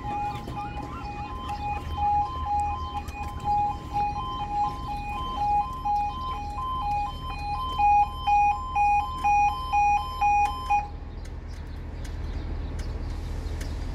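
Level crossing alarm sounding a two-note warning, alternating evenly between a lower and a higher tone, that cuts off about eleven seconds in. A steady low rumble runs underneath.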